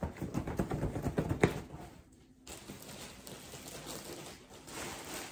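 Fabric rustling and soft thumps of a pillowcase being stuffed and handled, busy for about two seconds with one louder thump about a second and a half in. After a brief break, only faint room noise.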